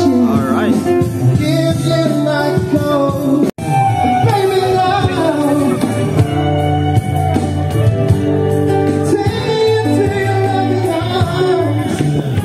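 Live band playing a song with a singer, acoustic guitar and percussion. The sound drops out for an instant about three and a half seconds in.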